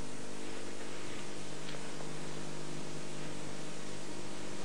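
Steady hiss with a low electrical hum made of several steady tones: the background noise of an old analogue recording.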